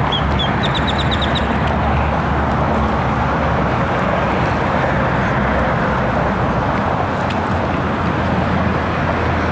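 Steady, loud outdoor background rush, with a bird giving a quick run of about seven high chirps about a second in.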